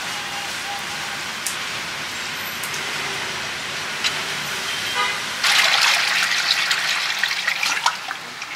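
Steady street traffic noise with a short vehicle horn toot about four seconds in, then, louder from about halfway through, live fish thrashing and splashing in a basin of water.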